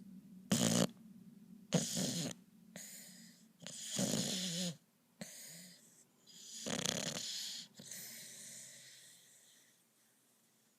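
Snoring: four loud, rasping snores in the first seven seconds, each trailing off into a softer hissing breath, then the breathing fades away near the end.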